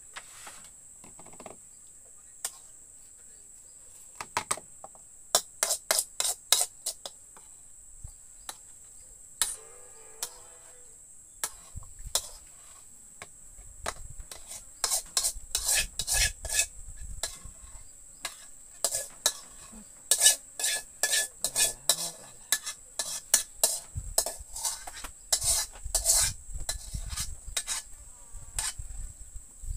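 A spoon scraping and clinking against a wok as cooked sambal ikan bilis is scooped out into a bowl. Quick runs of sharp scrapes and taps begin about four seconds in and grow denser in the second half. A steady high insect buzz from crickets runs underneath.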